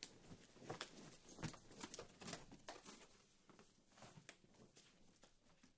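Near silence with faint rustling of clothes and bedding and soft taps, as a person moves about a bed.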